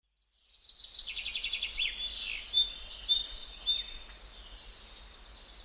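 Birds chirping and singing in quick, high trills and short whistles, fading in from silence over the first second and thinning out toward the end.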